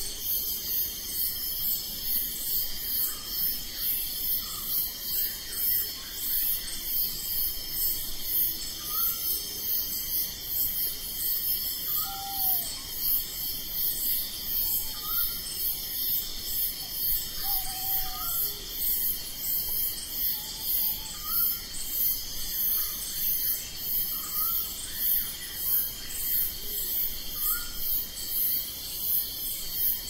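Night insect chorus of crickets: a high, steady trill with an even pulsing chirp a little faster than once a second, and short rising calls every few seconds over it.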